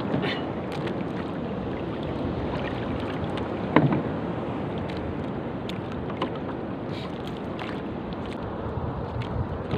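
Wind on the microphone and sea water sloshing around a small wooden outrigger canoe in choppy water. There is a single sharp knock against the boat about four seconds in.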